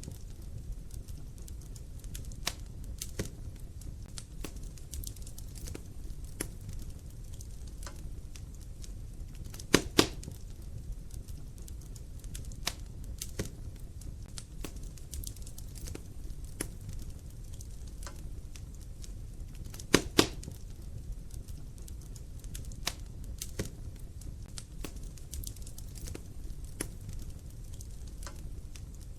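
Wood fire burning in a fireplace: a steady low rumble of flames with frequent small crackles, and a sharp double pop about ten seconds in and again about twenty seconds in.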